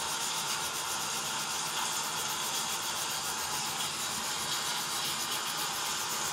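Steady storm ambience of heavy rain and wind: an even, unbroken hiss.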